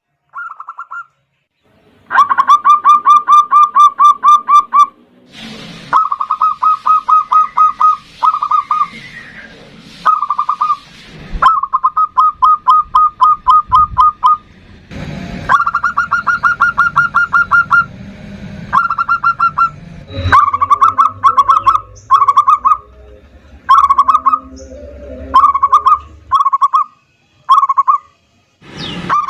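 Zebra dove (perkutut) singing: loud, rapid trains of stuttering coo notes, about nine pulses a second, each phrase a second or two long, turning to shorter bursts near the end.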